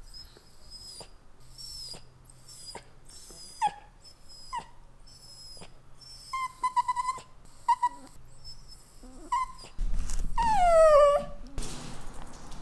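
Italian greyhound whining: a run of short, high-pitched whimpers, then one longer, louder whine that falls in pitch near the end.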